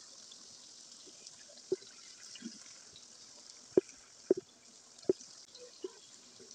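Lemon juice squeezed by hand dripping into simmering karahi gravy: about half a dozen separate drops plopping into the liquid, over a faint steady hiss.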